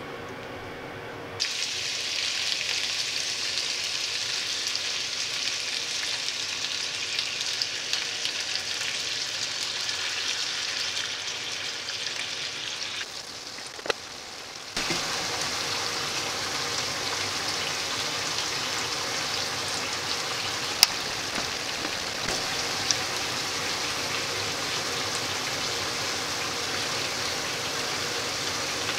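Sliced tomato, zucchini and Malabar spinach sizzling in oil in a frying pan: a steady sizzle that starts about a second and a half in, drops away briefly about halfway, then carries on, with a few sharp ticks.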